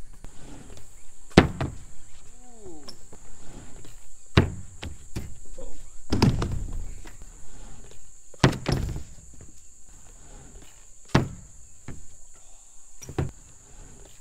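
BMX bike riding ramps: tyres rolling over the ramp surface, with a sharp thud about every two seconds as the wheels land or strike the ramp, six in all.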